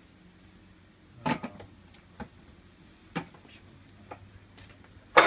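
Handling noise: a few separate knocks and clunks as tools and gear are moved about on a shelf, the loudest just before the end.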